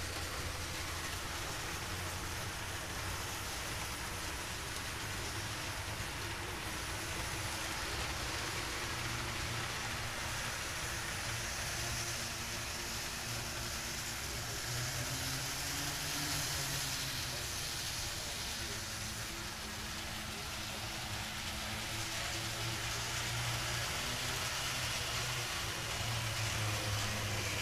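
Model trains running on a layout: a steady motor hum with wheels rolling on the track, over a constant hiss.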